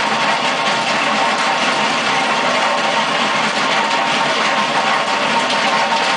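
Mustang 2076 turbo skid steer's diesel engine running under load while its Simex T600 cutting drum grinds a trench through concrete. The mix of engine and cutting noise is loud and steady, with no breaks.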